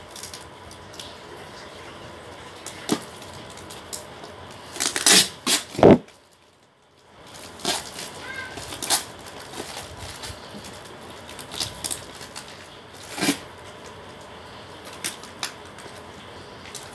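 Parcel packaging being cut and torn open by hand: scattered crinkles, scrapes and clicks of plastic wrap, tape and cardboard, loudest in a cluster about five to six seconds in, followed by a brief gap.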